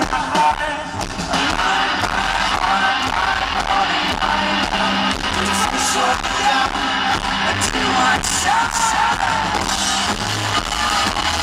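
Live rock band playing a loud instrumental passage, driven by a drum kit with hard-hit drums and crashing cymbals.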